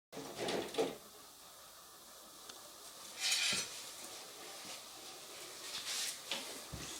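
Clatter and clinks of hard objects being handled, strongest in the first second, with a short noisy scrape about three seconds in and a few light clicks near the end.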